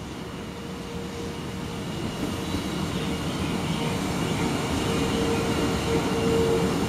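A JR 651 series Super Hitachi limited express electric train slowing as it pulls into the station, its wheels rumbling on the rails. The sound grows steadily louder as the cars come alongside, with a steady whine over the rumble.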